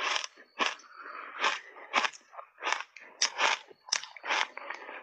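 Shaved ice being chewed in big mouthfuls: a run of crunches, about two a second.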